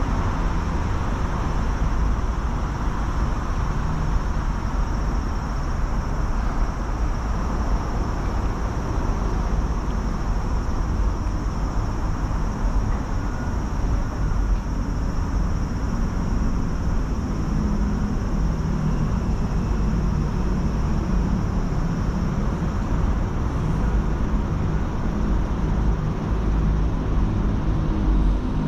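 Steady rumble of city traffic, with a low engine hum coming in about halfway through.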